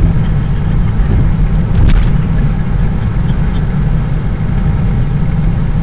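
Road noise heard inside a car driving at interstate speed: a steady low rumble of tyres and engine, with one short click about two seconds in.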